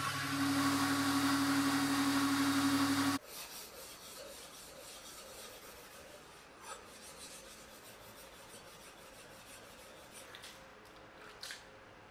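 Belt grinder running with a steel blade held against the belt: a steady hum and hiss that cut off suddenly about three seconds in. After that, quiet strokes of a knife blade rubbing on a wet whetstone.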